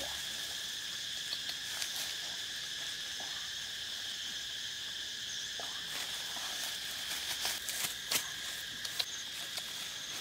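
Steady chirring of insects, a high even drone at two pitches. A few short clicks and rustles come about eight seconds in, from leaves and branches being handled.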